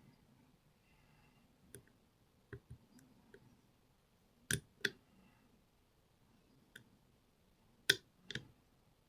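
Small sharp clicks from a lock pick working the pins of a pin-tumbler challenge lock under light tension. The clicks come irregularly, about ten of them, with two louder pairs about halfway through and near the end.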